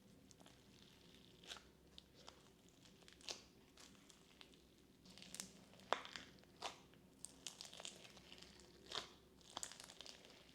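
Bingsu and floam slime being squeezed and pulled by hand, giving faint, scattered crunchy crackles and pops from the beads.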